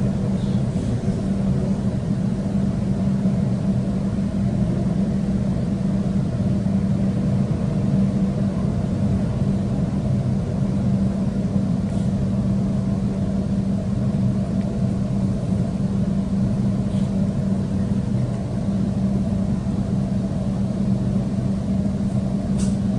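Sydney Trains electric suburban train heard from inside the carriage: a steady running rumble and hum of the motors and wheels on the track, with a few faint clicks.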